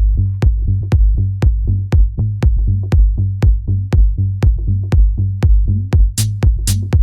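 Electronic dance music from a DJ mix: a steady kick drum about twice a second over a deep held bass line, with a bright hi-hat pattern coming in near the end.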